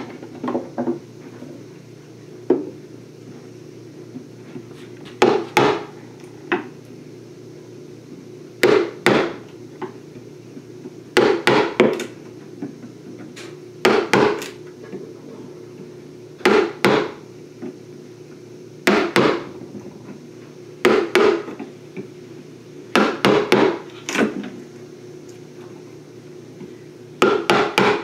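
A chisel being struck into a wooden beehive top, chipping out the wood inside a hole-saw cut: short clusters of two to four sharp knocks, one cluster every two or three seconds.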